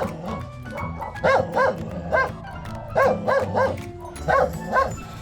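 Dog barking repeatedly in short groups of two or three sharp barks, about a second between groups.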